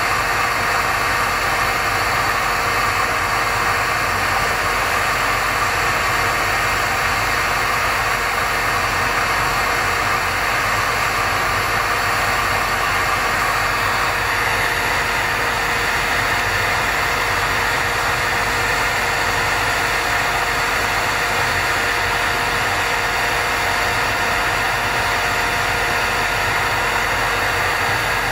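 Electric heat gun running steadily, its fan and motor blowing a constant hiss with a hum, as it heats a turbocharger compressor wheel to free it from the shaft. The hiss turns a little higher about halfway through.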